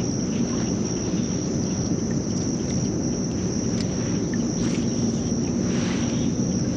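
Insects keeping up a steady, high, unbroken drone over a continuous low rumble, with a few faint clicks.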